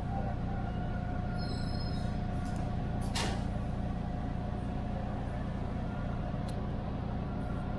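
TTC T1 subway train drawing to a stop at a station platform, heard from the cab. A steady low hum runs under a faint steady whine from the train's equipment. A faint high squeal comes about one and a half seconds in and a brief hiss about three seconds in.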